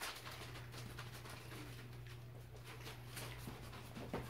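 Five-week-old puppies moving about on a hardwood floor around their food bowls: faint scattered pattering and clicks of paws and kibble, with one sharper click near the end, over a steady low hum.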